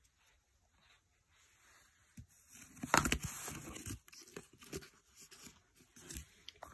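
Scissors cutting into corrugated cardboard: a run of crunching, tearing cuts starting about three seconds in, loudest at the first cut.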